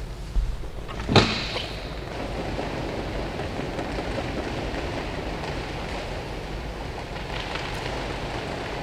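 A sharp knock about a second in, then steady splashing water.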